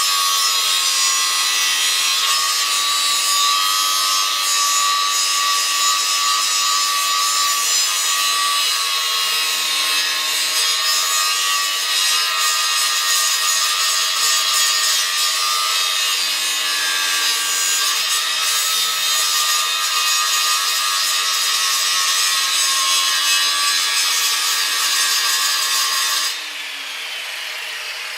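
Angle grinder grinding the heads off fasteners on a steel rack frame: a steady motor whine under a loud, harsh rasp of metal. Near the end the disc comes off the metal, the sound drops and the whine falls as the grinder spins down.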